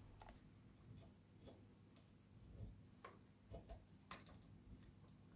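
Near silence with a few faint, scattered metallic clicks as a small spanner and the metal ferrule and nut on a fibreglass CB antenna section are handled and tightened.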